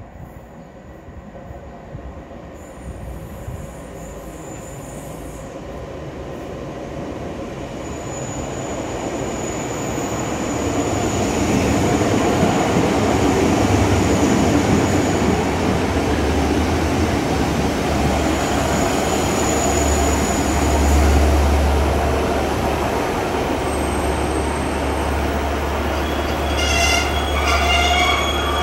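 A train approaching along the platform, growing steadily louder over the first dozen seconds, with brief high wheel squeals. It then runs on as a steady low rumble. Near the end comes a quick run of short beeping tones.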